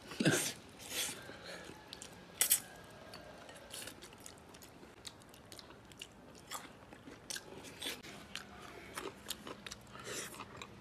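People eating braised chicken heads: close-up chewing and sucking at the meat, with many short crunches and clicks, the loudest just after the start and about two and a half seconds in.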